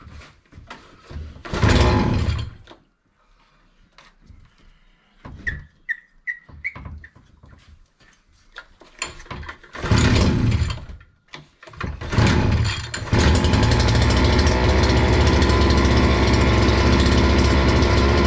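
Two-stroke engine of a Bolat Atak 570 brushcutter being started: a couple of brief bursts, then it catches about thirteen seconds in and runs steadily. The engine has a stop switch that fails to kill it.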